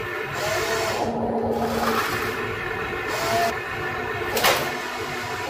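Huina RC excavator's electric motors and gearboxes whirring as it works, with a sharp knock about four and a half seconds in.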